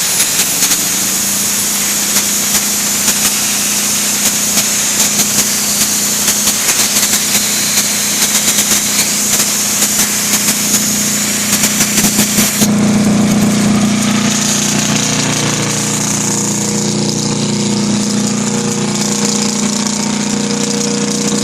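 Kohler KD425-2 two-cylinder diesel engine running steadily, with a high hiss and rapid ticking over its low drone. About two-thirds of the way through the sound changes suddenly: the hiss drops away and the engine's low tone comes forward.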